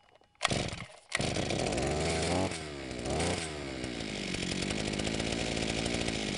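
Chinese two-stroke chainsaw catching about a second in, after a short burst of noise, then revved up twice and running steadily. The saw runs after its ignition coil's air gap was reduced to 0.20, which cured its missing spark.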